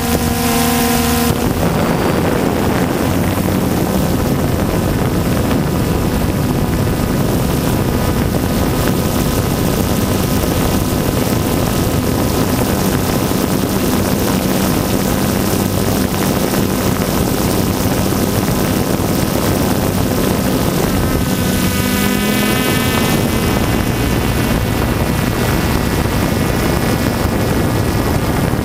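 DJI Phantom 2 quadcopter's motors and propellers running in flight, heard from the camera on the drone. Steady whining tones of several pitches sit over a constant rush of noise. The pitch shifts briefly a little over twenty seconds in.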